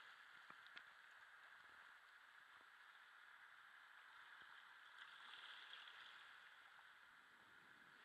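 Faint, gentle wash of small waves lapping on a rocky shoreline, swelling slightly about five seconds in, with a few faint ticks near the start.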